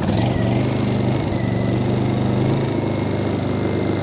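Honda EU2000i inverter generator's single-cylinder four-stroke engine running steadily, having just caught on a cold start with the choke on. About two and a half seconds in its note shifts a little as the engine settles.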